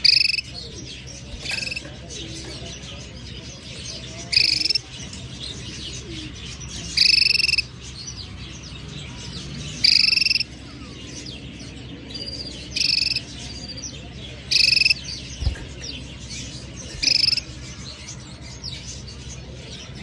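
Domestic canary calling: a short, steady call of about half a second, repeated every two to three seconds.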